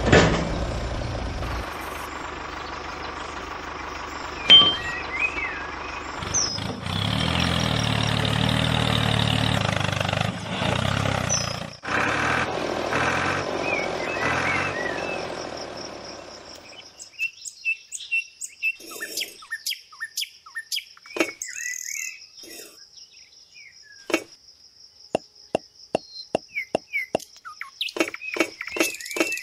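An engine drone runs for about the first half and fades out, with birds chirping over it. After that comes a series of sharp clicks of small bricks being set down on a toy trolley, coming quickly near the end.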